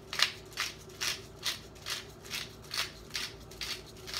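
Pepper mill being twisted by hand, a gritty grinding stroke repeating about two to three times a second.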